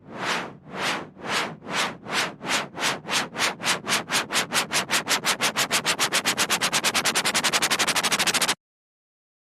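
Synthesized white noise sweeps from FL Studio, repeated in a train-like pattern: swells of hiss that speed up from two or three a second to a fast, dense chuffing, growing louder, then cut off suddenly near the end.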